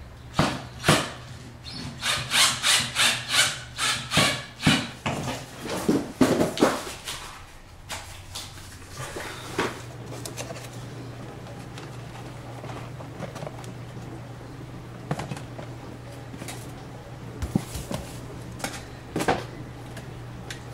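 A hand tool worked against the wall in quick, rhythmic rubbing strokes, about two to three a second, for several seconds, then stopping. After that come quieter handling sounds, a few light knocks and clinks, over a steady low hum.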